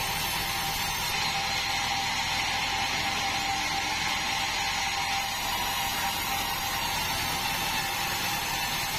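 Band sawmill running steadily, a continuous machine noise with a constant whine.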